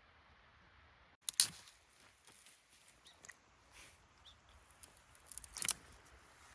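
Faint background with sharp clicks: one loud click about a second in, a few faint ticks, and a quick run of clicks near the end.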